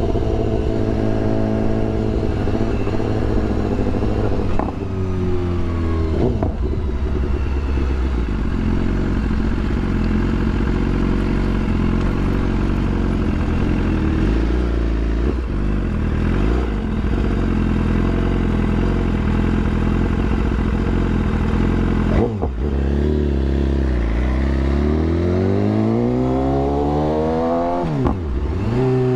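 BMW S1000RR inline-four sport bike engine being ridden: revs climb and drop sharply several times as gears change, holding steady through the middle, with a strong rush of riding wind over it.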